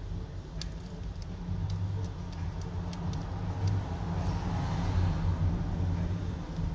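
Small metallic clicks and taps of tweezers against the opened Xiaomi Redmi 9A's frame and parts, several in the first four seconds, with a soft rustle of handling near the middle, over a steady low hum.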